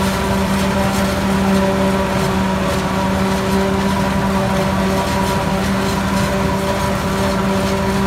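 New Holland FX48 forage harvester running steadily as it chops standing maize and blows silage into a trolley, a constant-pitch machine hum with the Ford 4000 tractor pulling the trolley alongside.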